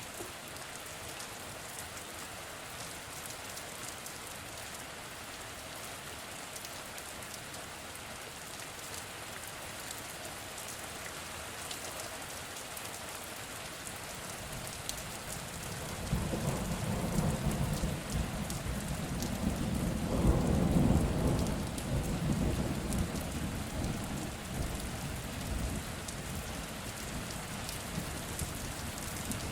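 Rain falling steadily. About halfway through, a long roll of thunder breaks in suddenly, swells for a few seconds to its loudest, then slowly rumbles away under the rain.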